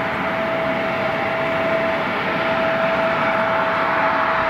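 Bombardier CRJ-900's two rear-mounted GE CF34 turbofan engines running at taxi power as the jet taxis. The sound is a steady rushing hiss with one held whine.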